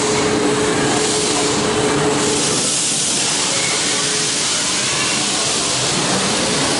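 Rushing water or spray giving a loud, steady hiss, with a faint low hum during the first two seconds.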